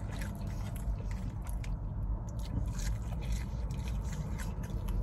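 A person chewing and biting food close to the microphone, with scattered small clicks, over a steady low hum.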